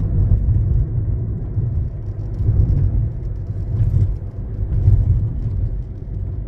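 Steady low rumble of a car in motion, heard from inside the cabin: road and engine noise that swells and dips irregularly.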